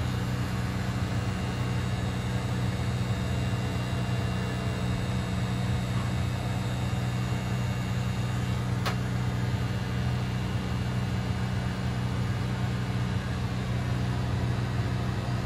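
Corded electric hair clippers running with a steady buzz as they trim a toddler's hairline.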